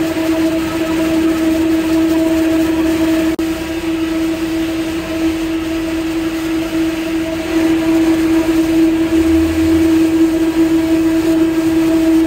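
Electric fan motor running with a loud, steady hum, and a single sharp click about three seconds in.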